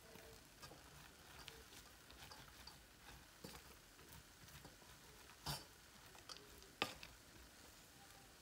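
Near silence with a few faint knocks of a wooden spoon against a metal pot of fried rice, about three and a half, five and a half and seven seconds in.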